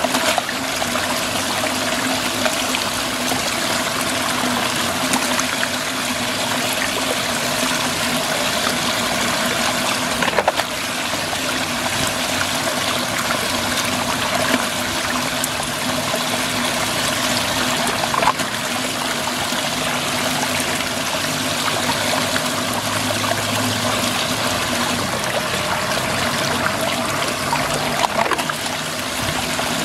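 Muddy water swirling and draining steadily down a whirlpool hole, with a faint steady hum underneath. A few brief knocks, about ten and eighteen seconds in and near the end.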